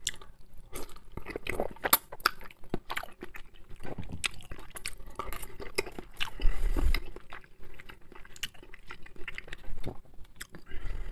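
A person chewing a mouthful of boiled dumplings: a run of short, irregular wet mouth clicks, with a louder stretch a little past halfway.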